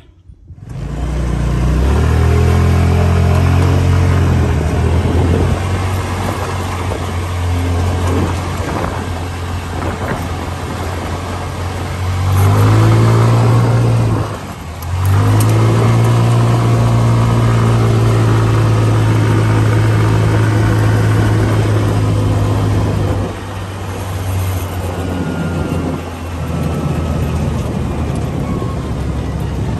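A 2021 Hammerhead go-kart's engine running under throttle as the kart drives along. The engine lets off briefly about halfway through, then picks back up, and runs lower for a few seconds later on.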